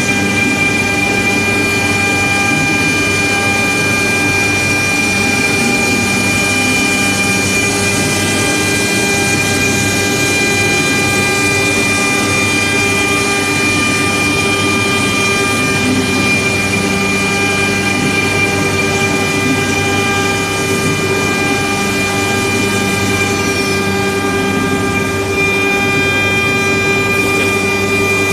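Spindles of a three-spindle CNC router running, a steady whine at several fixed pitches over a continuous rushing noise.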